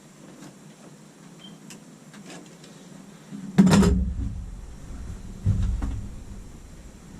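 A few light clicks, then two heavy knocks about two seconds apart, the first the louder, each with a low rumble that dies away over about a second.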